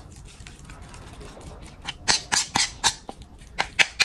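Metal spoon scraping and clacking against a plate as it mashes and kneads raw minced fish into a paste for fish balls. It is faint at first, then a quick run of sharp scrapes, about three or four a second, begins about halfway in.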